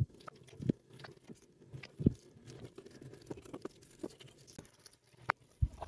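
Kitchen knife slicing through set jelly and knocking on a plastic cutting board: faint, irregular soft knocks, the loudest at the start and about two seconds in.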